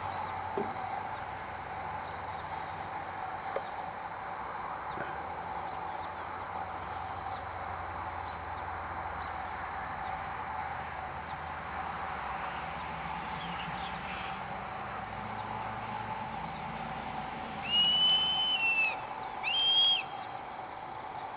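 A hawk calling twice near the end, two loud, clear screams of about a second each that drop slightly in pitch at the end, over a steady outdoor hum.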